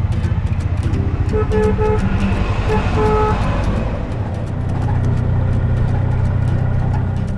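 Auto-rickshaw engine running steadily, heard from inside the cab, with a few short horn toots in quick succession between about one and three and a half seconds in.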